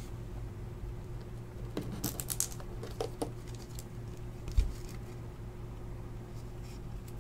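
Faint scratching and clicking of a trading card and plastic being handled as the card is slid into a protective sleeve and rigid toploader, with a dull thump about four and a half seconds in, over a steady low hum.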